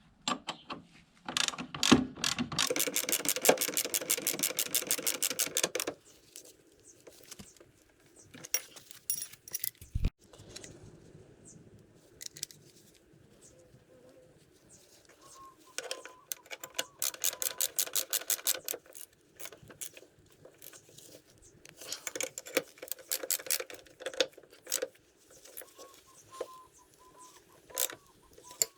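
Mechanic's tools at work on a scooter's rear wheel during a wheel-bearing change: three bursts of rapid, evenly spaced metallic clicking lasting a few seconds each, with scattered knocks and a dull thump between them.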